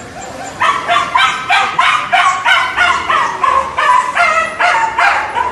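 A dog barking in a quick run of about fifteen short barks, roughly three a second, starting about half a second in and stopping near the end.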